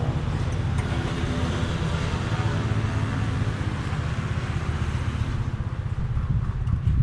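An engine running steadily nearby, a low, even rumble throughout, with a fainter hiss above it that fades out about five seconds in.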